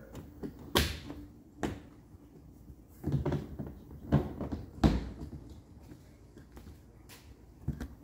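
Dishwasher's corrugated plastic drain hose being snaked back through its plastic base frame by hand: a string of knocks and scrapes, loudest just under a second in and again around three to five seconds in, then quieter handling.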